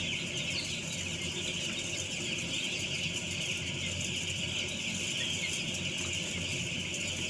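Dense, steady chorus of peeping from a crowded flock of young broiler chicks, many birds calling at once with no pause.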